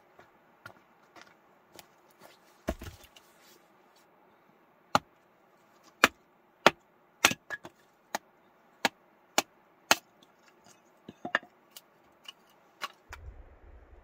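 Hatchet splitting firewood on a wooden chopping block: about a dozen sharp chops, spaced irregularly, starting about five seconds in, after a single heavy thump near three seconds in. A low rumble comes in near the end.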